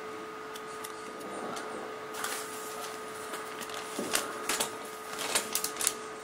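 Paper rustling and crackling as a watch's paper manual and tag are handled, a series of light crackles and taps that pick up about two seconds in, over a steady hum.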